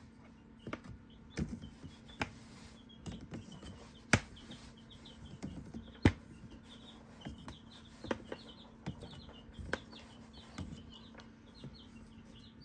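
Irregular clicks and knocks of chicken eggs being lifted and set down in plastic incubator egg-turner trays, with two sharper knocks about four and six seconds in. A steady low hum runs underneath, and faint rapid high chirping starts about three seconds in.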